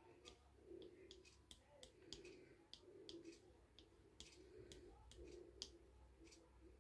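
Faint, irregular clicking and ticking as a pyrography pen's hot wire tip is dabbed and drawn across the wood, burning in fine fur detail. A faint low sound swells and fades about once a second underneath.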